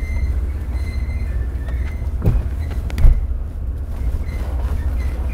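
VW T4 Syncro van rolling along, its running noise heard from inside, with a thin scraping squeal from the front right wheel that comes and goes. The mechanics suspect a worn wheel bearing letting the wheel rub against the brake carrier. A single thump about three seconds in.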